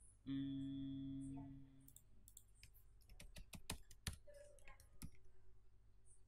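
Computer keyboard keys being pressed in an irregular run of clicks from about two to five seconds in. This is preceded by a loud, steady, humming tone lasting about a second and a half near the start.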